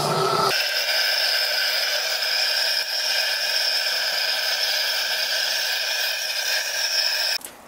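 Propane weed-burner torch blasting its flame into lump charcoal to light it: a loud, steady hiss with a held whistling tone, cutting off sharply near the end.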